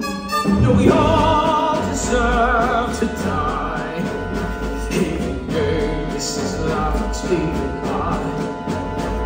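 Live musical-theatre pit orchestra playing, with a sung line in wide vibrato over it, heard from the audience.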